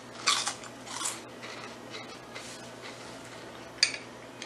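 Funyuns onion-flavored rings being chewed: a few crisp crunches in the first second or so, fainter ones after, and a short crackle near the end.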